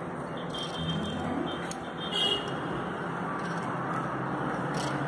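Steady background rumble and hiss, with a few short high-pitched tones about half a second in and again about two seconds in.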